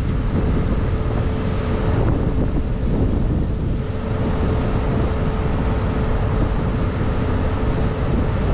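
Strong wind buffeting the microphone, a continuous low rumble, with a faint steady hum from a machine underneath.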